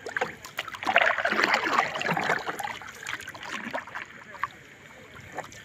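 Fishing net with sardines being hauled over a boat's side, water splashing and dripping off the mesh. The splashing is heaviest about a second in and eases off after two and a half seconds into scattered drips and ticks.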